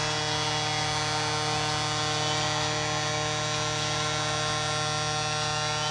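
Arena goal horn sounding one long, steady, buzzy blast, signalling a home-team goal.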